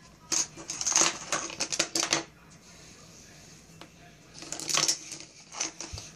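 Plastic eyeglass frames clattering and scraping on a hard desktop as a cat's paw bats them about. The clicks and knocks come in two bursts: one in the first two seconds and another about four and a half seconds in.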